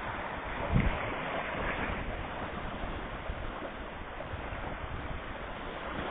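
Small Baltic Sea waves washing onto a sandy shore, with wind on the microphone. There is a brief low thump about a second in.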